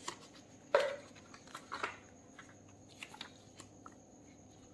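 Hands handling unboxing packaging: rustling and crinkling of a plastic bag and paper leaflets. It comes in irregular bursts, loudest about a second in and again just before two seconds, then fades to a few faint ticks.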